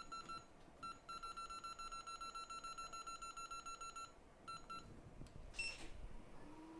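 Rapid train of electronic beeps at one pitch, several a second, from the soldering rework equipment's control panel as it is set up to solder the RAM chip down; the beeps pause, two more follow, then one higher beep, and a steady low hum starts near the end.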